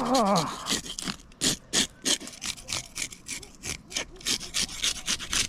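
Fillet knife sawing through a bluefin trevally's scaly skin and flesh in quick repeated raspy strokes, about two to three a second.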